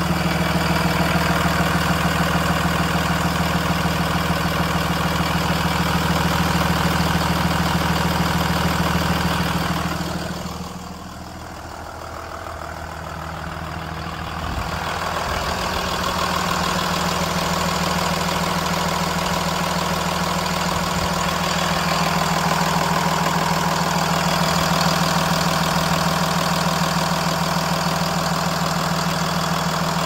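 Blue Bird Vision school bus's diesel engine idling steadily, heard close to the engine bay. It dips for a few seconds about ten seconds in, then returns.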